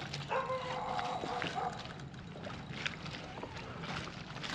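Water sloshing against a kayak hull, with scattered light clicks and knocks. Near the start, a brief steady tone of unknown source holds for about a second and a half.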